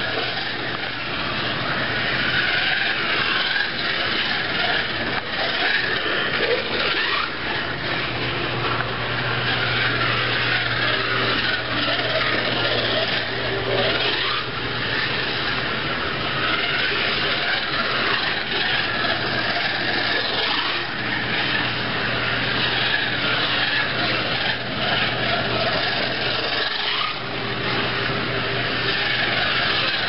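1:32-scale 1941 Buick Roadmaster slot car running on a plastic slot track: a continuous, steady rushing and rubbing noise from its high-power electric motor and guide braids on the rails. A low hum comes in about eight seconds in and drops out near the end.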